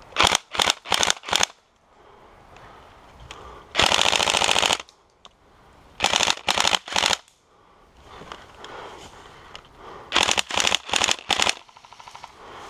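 Battery-powered airsoft rifle (AEG) firing in bursts: four quick bursts at the start, one longer full-auto burst of about a second near the middle, then two more runs of four short bursts.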